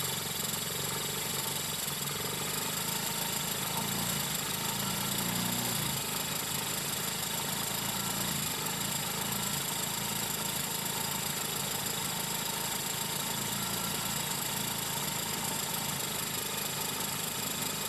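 Yamaha Mio 125 scooter's fuel-injected single-cylinder engine running steadily at a raised idle with the throttle held slightly open, just after a throttle-body and combustion-chamber cleaning, while the ECU relearns its idle. It swells slightly about four seconds in and then settles.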